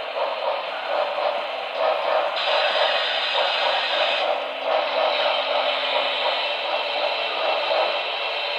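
A model duplex steam locomotive running slowly along its track, giving a steady hissing, fluttering steam-and-running sound. A faint low hum joins it from about two seconds in until about seven.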